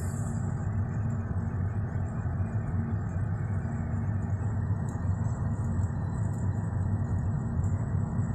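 Steady road noise of a moving car heard inside its cabin: tyre and engine hum as a constant low drone.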